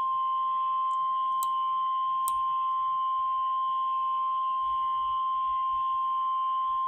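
NOAA Weather Radio 1050 Hz warning alarm tone: a single steady high beep held for about seven seconds, then cut off suddenly. It is the attention signal that comes before a National Weather Service watch or warning broadcast.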